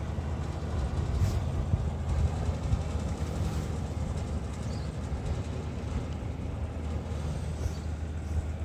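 Small diesel locomotive engine idling, a low, steady sound.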